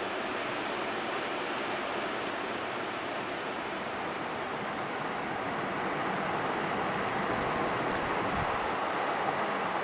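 River water rushing: a steady noise that grows a little louder from about six seconds in, with some low rumble near the end.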